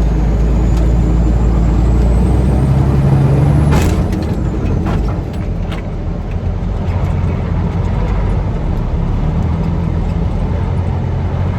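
Loaded truck's diesel engine pulling hard through deep sand with a faint rising whine. About four seconds in comes a sharp crack, and the engine note drops as if the load has fallen away, which the driver takes for the rear end popping or the truck popping out of gear: the axle broke.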